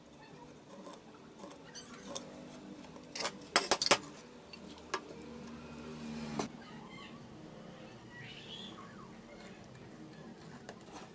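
Handling sounds on a wooden tabletop: a quick cluster of sharp clicks and knocks about three to four seconds in, then single knocks near the middle, over a faint background.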